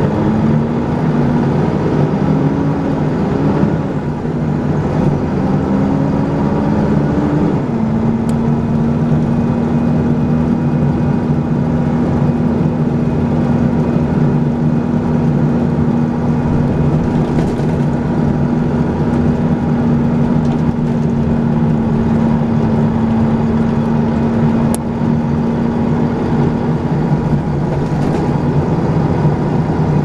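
Volvo B10BLE single-deck bus's diesel engine and ZF automatic gearbox heard from inside the saloon: the whine rises in pitch as the bus accelerates, drops at an upshift about seven seconds in, then holds a steady pitch while cruising.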